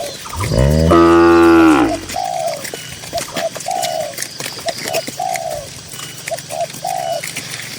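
A cow mooing once, a long loud moo near the start that rises and then falls in pitch. Doves coo in short repeated phrases throughout.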